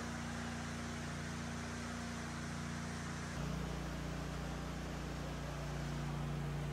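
Steady machine hum with a low drone over a hiss. About three and a half seconds in, the drone changes abruptly to a lower, slightly louder pitch.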